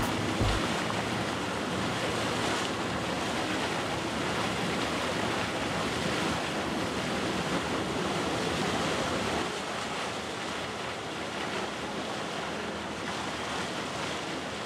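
Steady rush of choppy sea water and wind from aboard a moving boat, with wind buffeting the microphone at the start; the rush eases a little about two-thirds of the way through.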